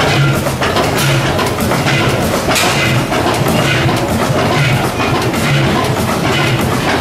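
Large horizontal De La Vergne oil engine running slowly, with a heavy beat about once a second over steady mechanical clatter.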